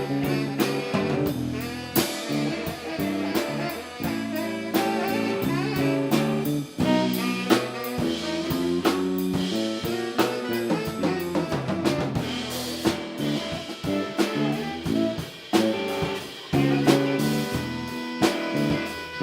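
Live band playing an instrumental jazzy groove, with drum kit beating steadily under saxophone lines.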